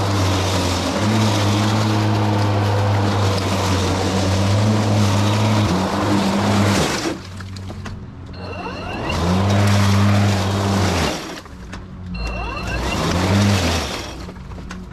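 Battery-powered EGO 56-volt walk-behind lawn mower cutting through long, dry overgrown grass: a steady motor-and-blade hum under the rush of grass being cut. About seven seconds in the cutting rush falls away, and the hum drops and climbs back up in speed a few times as the blade works into thick grass.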